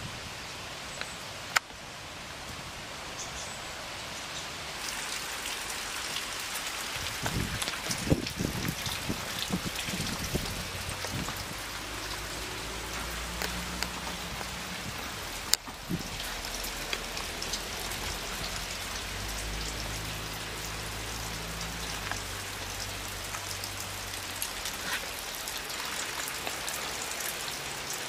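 Steady rain falling and tapping on nearby surfaces, with two sharp clicks, one near the start and one about halfway, and a few low thumps early on the way.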